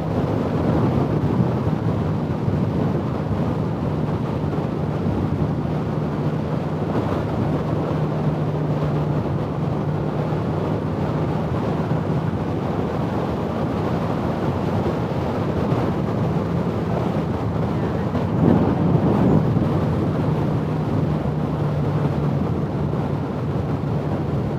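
Wind rushing over a helmet-mounted microphone at highway speed on a motorcycle, with a steady low hum from the bike underneath; the wind swells briefly about three-quarters of the way through.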